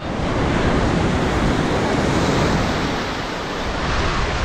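Rough shore-break surf: waves breaking and foamy backwash rushing over the sand close by, a steady loud rush of water.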